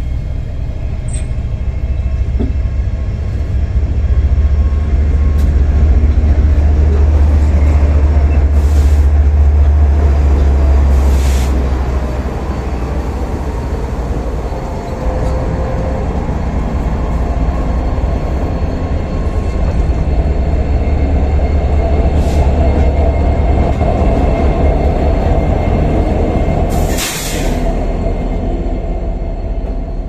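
A GE and an EMD diesel-electric freight locomotive pass close by in turn, each with a deep, heavy engine drone. The first is loudest early on; the sound eases and then swells again as the second unit goes by, with wheel and coupler clanks over the rails and one sharp crack near the end.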